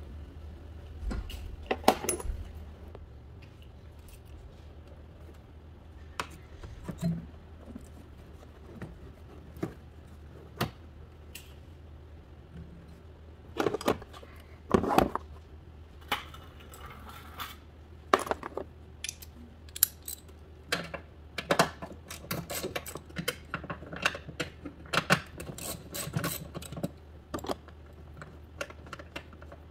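Hand tools and metal engine parts clinking and clicking as they are handled and set down, with a couple of louder clanks about 2 s and 15 s in and quicker, denser clicking through the last third. A steady low hum runs underneath.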